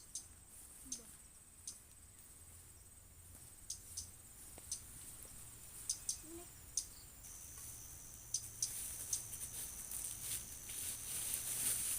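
Crickets trilling in tropical forest: a steady high-pitched drone that swells toward the end, with a second trill joining about halfway through. Short sharp clicks come scattered over it.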